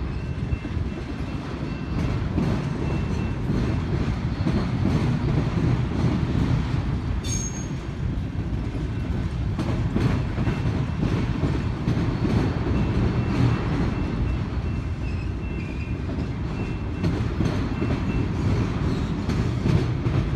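Freight train of autorack cars rolling steadily past: a low rumble of steel wheels with regular clicks over the rail joints, and a faint thin wheel squeal on and off.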